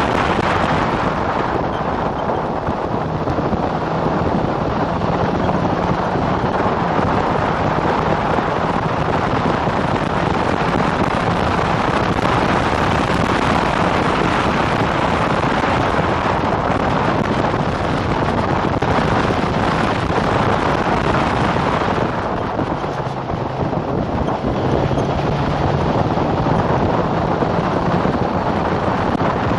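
Heavy wind rush on the onboard microphone of an open-wheel single-seater racing car at speed, with its engine running underneath. About three quarters of the way through the sound dips briefly as the car slows for a corner, then the engine note comes back stronger.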